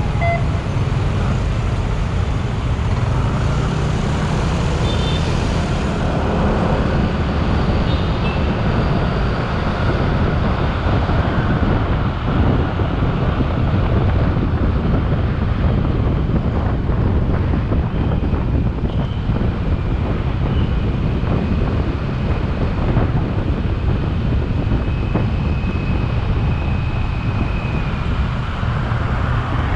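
Motorcycle ride through city traffic: a steady low rumble of wind on the microphone mixed with engine and road traffic noise.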